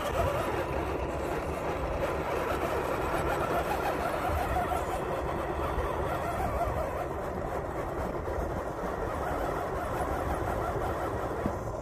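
GT Power simulated RC engine sound module playing a steady engine sound through the crawler's onboard speaker while the truck drives.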